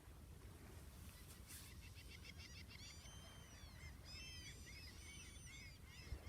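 Faint calls of a flock of birds: many short, high calls overlapping, busiest in the middle, over a low steady outdoor rumble.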